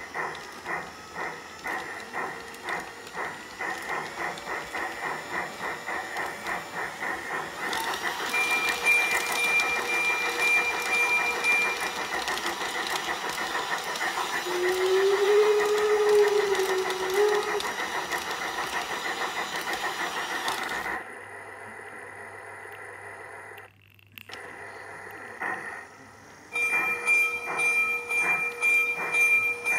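Piko G-scale class 80 steam locomotive model running along its track with a steady rhythmic chuff, about two to three beats a second. About a quarter of the way in, a louder hissing joins with a brief high whistle tone. The sound drops away suddenly about two-thirds through, and the chuffing returns near the end.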